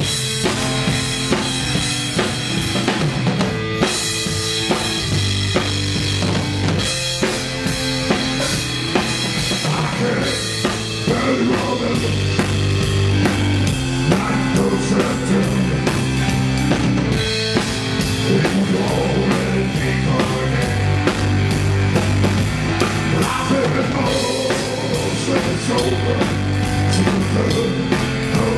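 Live rock music: a drum kit playing a steady beat with bass drum and snare under an electric keyboard playing a low, held bass-line riff.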